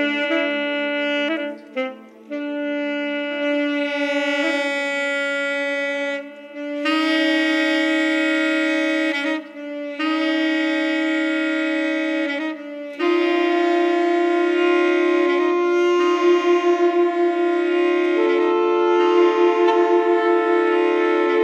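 Alto saxophone playing long held notes that are looped back by a live tape-delay system, so several saxophone tones overlap into a sustained, shifting chord. New notes enter every few seconds, and in the later part the layered sound pulses rapidly.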